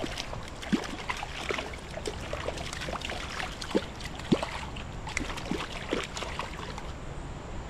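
Shallow stream water running, with scattered small splashes and plops as a hooked brown trout thrashes at the surface close by.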